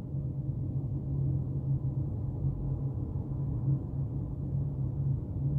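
Steady low hum and rumble of room background noise, with no distinct sound of the water being added.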